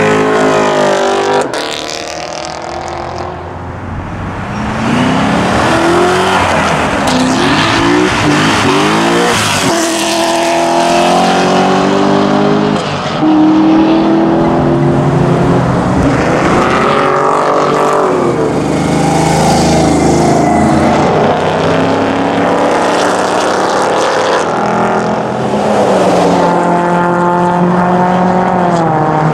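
Cars accelerating hard past one after another, the first a Chevrolet Camaro. The engines rise in pitch through the gears with breaks at each shift, and there is a sharp snap about a second and a half in.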